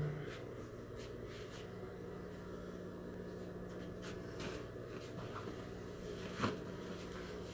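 Quiet room tone: a steady low hum with a few faint rustles and ticks, and one sharp click or knock about six and a half seconds in.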